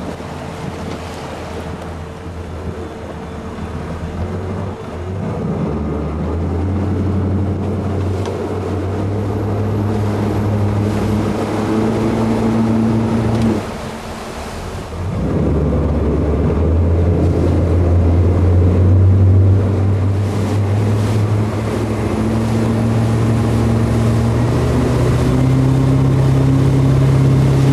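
Centurion Typhoon wakeboard boat under way, its engine running with a steady hum over the rush of the churning wake and wind on the microphone, pulling a wakeboarder. The engine sound drops away briefly about halfway, then picks up again and runs louder.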